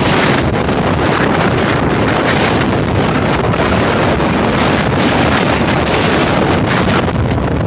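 Loud, steady wind buffeting the microphone, a dense rushing noise with no clear pitch.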